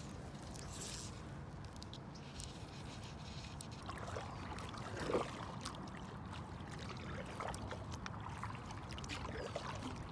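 A kayak being paddled: water trickling and splashing lightly around the paddle and hull, with a few small knocks, over a low steady rumble.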